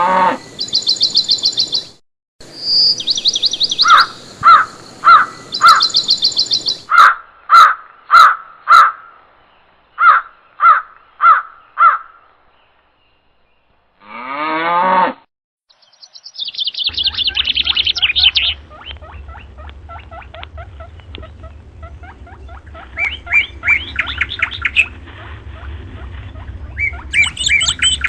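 Bird calls and chirps: rapid high trills and evenly repeated call notes in several short separate stretches with brief silences between, then a longer run of calls over a low steady hum in the second half.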